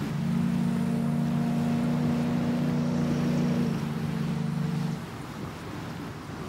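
A riverboat's deep whistle sounding several notes together as one chord, held for about five seconds, with its top note dropping out a little before the rest. Beneath it is a steady rush of churning water and wind.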